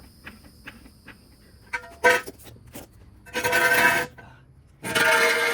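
Floor jack being worked under a car: faint quick clicking, then three bursts of harsh metallic screeching and scraping, the last two each lasting under a second.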